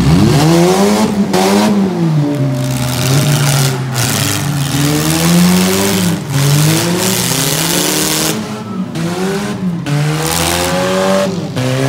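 Four-cylinder demolition derby cars' engines revving hard, their pitch climbing and falling again and again, with more than one engine heard at times over a dense wash of noise.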